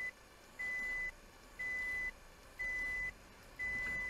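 Electronic warning beep inside a car, one even half-second beep every second at a single high pitch, over a faint low engine rumble.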